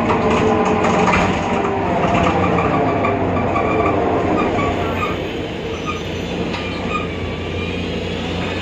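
Interior ride noise of a BredaMenariniBus Avancity Plus city bus under way: the Deutz diesel and ZF automatic drivetrain running, with several steady whining tones and some rattling early on. The whine is the strange drivetrain sound that the uploader traces to a faulty differential. The noise eases slightly after about five seconds.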